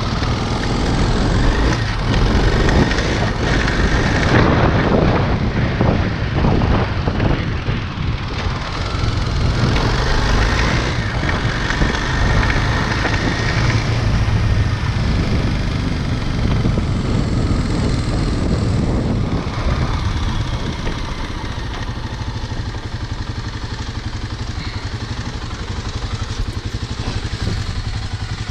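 Motorcycle engine running as it is ridden, steady with small rises and falls, a little quieter and steadier for the last several seconds.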